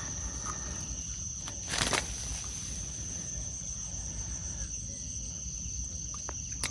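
Insects trilling steadily in one continuous high note, over a low background rumble. A short scuffing burst about two seconds in is the loudest sound, with a few faint clicks.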